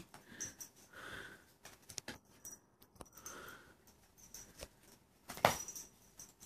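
Pomchi puppy chewing and tearing at a piece of cardboard: faint scattered crackles and rustles, with one louder crackle about five and a half seconds in.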